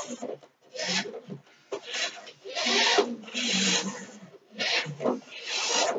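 Toy RC car's small electric motor and plastic gears whirring with a rasping buzz, in about six short bursts that stop and start as the throttle is pressed and released.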